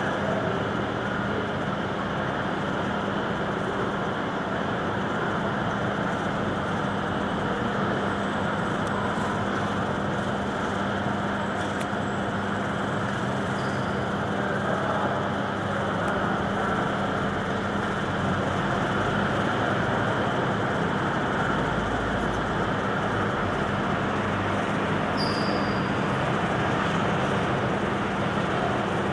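Bus engines running inside a bus interchange, with a steady drone and a constant low hum. A deeper rumble swells about three-quarters of the way through as a bus moves off.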